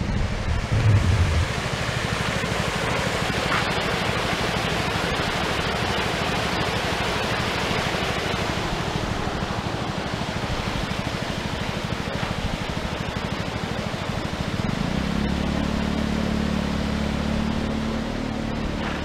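Steady rushing outdoor noise, with wind buffeting the microphone for the first second or so. A low steady hum joins about fifteen seconds in.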